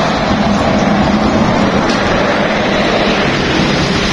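Loud, steady street-traffic noise from motorbikes and cars running close by.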